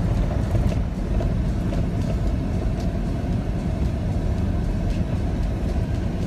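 Steady low rumble of a 2003 Chevrolet's engine and tyres, heard from inside the cab while driving on a dirt and gravel road.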